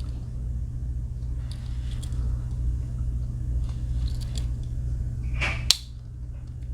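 Victorinox Huntsman Swiss Army knife being handled: a few faint clicks, then a short scrape and one sharp click as a tool snaps into place on its backspring late on. A steady low hum runs underneath.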